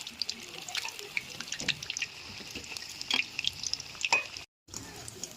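Hot oil sizzling with frequent irregular crackles and pops, as battered stuffed chillies deep-fry. The sound cuts out briefly about four and a half seconds in.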